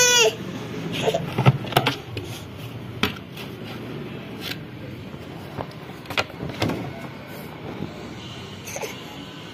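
Hard plastic lid of a plastic storage drum knocking and scraping as a toddler handles it: a quick cluster of knocks in the first couple of seconds, then separate knocks scattered through the rest.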